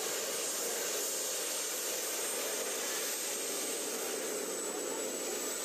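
Model jet turbines of a large radio-controlled Boeing 747-400 running steadily on the ground: an even rushing hiss with a high whine held on one pitch.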